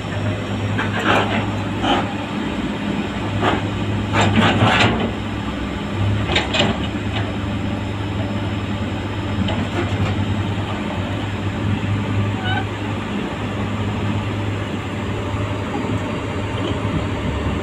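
Heavy-equipment diesel engine running steadily with a low hum, with several metal clanks from the dozer's steel tracks and blade being shifted by an excavator bucket in the first seven seconds, loudest about four to five seconds in.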